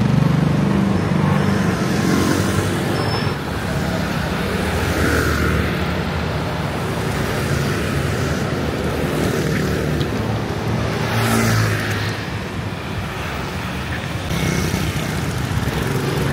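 City street traffic: motorbike and car engines running, with vehicles passing about five and eleven seconds in.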